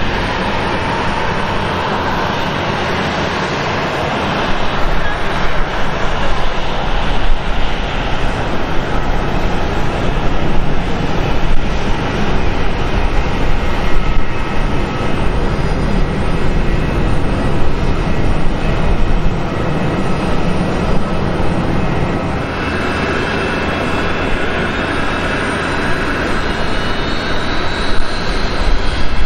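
Jet airliner engines running at taxi power: a steady rush over a deep rumble. In the last few seconds a faint rising whine joins in.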